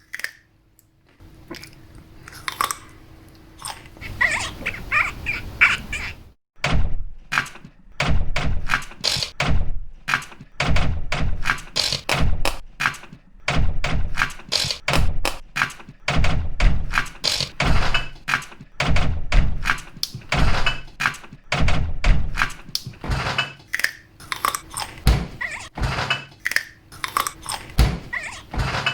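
A rhythmic beat built from everyday found noises: knocks, thuds and clatters struck on household objects, cut together into a steady groove. It begins sparser and quieter, breaks off briefly about six seconds in, then runs on as a dense run of strikes.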